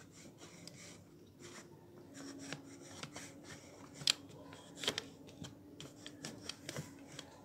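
Plastic and metal parts of a photocopier drum unit being handled and pushed into place by hand: rubbing and scraping with scattered clicks, two sharper clicks about four and five seconds in.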